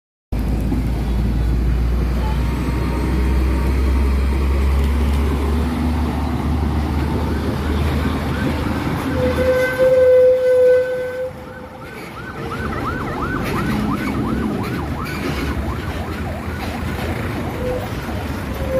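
Semi-truck's diesel engine rumbling as it pulls away with a loaded flatbed trailer. About ten seconds in, a vehicle horn sounds for a second and a half. It is followed by a few seconds of fast, warbling siren-like yelps.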